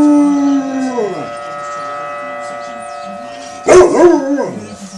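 A Rottweiler howls along with a tornado siren's steady wail of several held tones. One howl falls in pitch and trails off about a second in, and a second loud howl starts a little over a second before the end, sliding downward.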